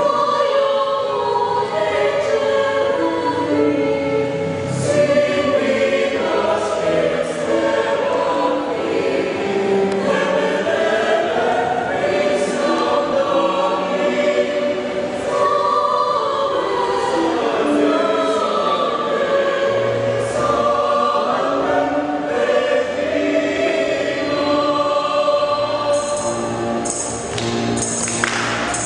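A church choir singing a hymn, sustained notes in several voice parts with steady, even loudness.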